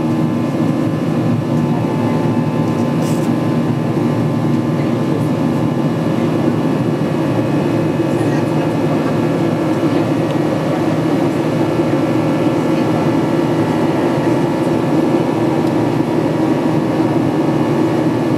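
Steady cabin noise inside a Boeing 737-800 in flight: the hum of its CFM56 turbofan engines and the rush of air along the fuselage, heard by a window seat, even in level with several constant humming tones.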